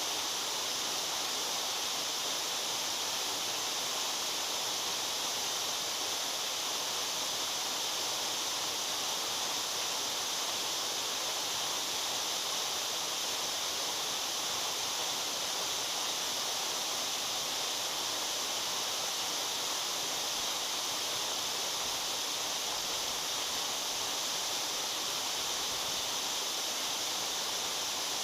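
Waterfall: water falling steadily into a pool, an even, unbroken hiss.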